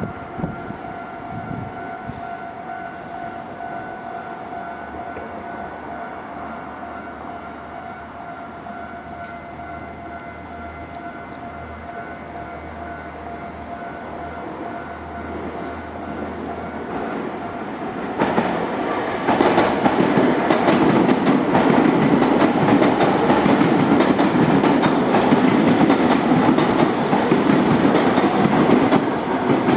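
Japanese level-crossing warning bell ringing steadily, then a little past halfway a train arrives and passes over the crossing, its rumble of wheels on rail much louder and drowning out the bell.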